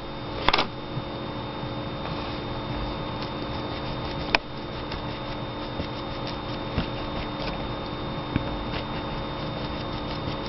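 Steady background hum with a few light taps and scrapes as a paintbrush works paint on paper, and one sharp click a little after four seconds in.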